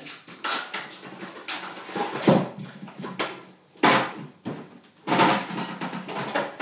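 Kitchen worktop clatter: a run of separate knocks and clunks as things are picked up and set down on the counter, loudest about two and four seconds in.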